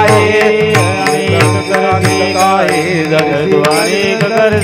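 Marathi Varkari kirtan music: voices singing an abhang refrain over a steady beat of small brass hand cymbals (tal) and a drum.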